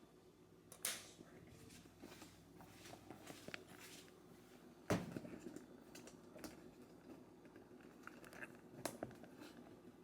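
Quiet room with scattered knocks and clicks of things being handled, the loudest about a second in and about five seconds in.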